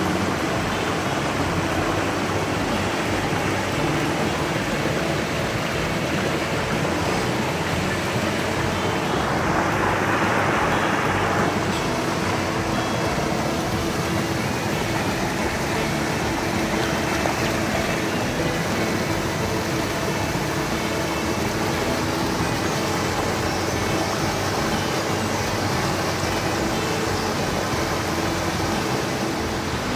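Steady rush of a rocky mountain stream's water, swelling briefly about ten seconds in.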